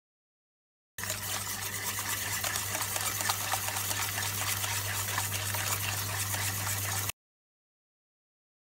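Wire hand whisk beating a wet banana batter in a stainless steel bowl, the wires scraping and rattling against the metal in quick strokes, over a steady low hum. It starts about a second in and cuts off suddenly near the end.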